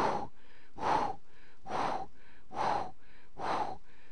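Recorded heart sounds at about 70 beats a minute, with a long hiss-like murmur filling each beat and a fainter sound between beats. It is a holosystolic murmur that covers the heart sounds, the sign of severe mitral regurgitation.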